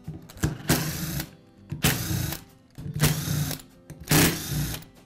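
A power screwdriver backing screws out of an angle grinder's plastic rear housing in four short runs, about a second apart.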